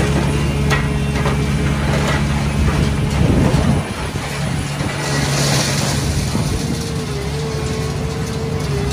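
Volvo EC700CL demolition excavator's 16.1-litre diesel engine running steadily under load, with a steady hydraulic whine. A few sharp knocks of breaking concrete come in the first three seconds, and a short hiss comes about five seconds in.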